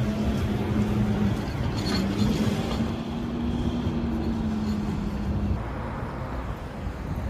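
Motor-vehicle traffic: an engine hum passes with a slight rise and fall in pitch and fades about five seconds in, over a steady low road rumble.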